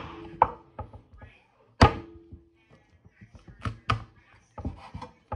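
Kitchen knife knocking on a wooden cutting board while fried chicken is cut up: a handful of separate thunks. The loudest comes about two seconds in, with a short ringing tone after it, and lighter knocks and clicks follow near the end.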